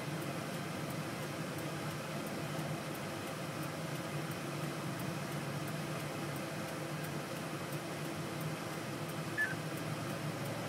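Steady low hum inside a stationary vehicle's cabin, with one short high chirp near the end.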